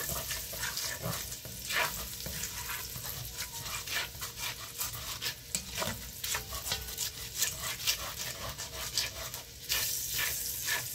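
Chopped garlic sizzling in pork-roast drippings in a Dutch oven, with a spatula stirring and scraping over the bottom of the pot in many quick strokes.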